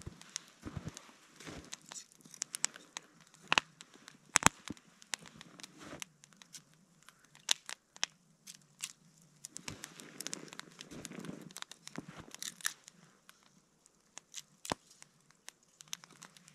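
Wood burning in bushcraft fire logs, crackling with sharp irregular pops throughout. Twice there is a denser spell of crunching and rustling, fitting footsteps in snow.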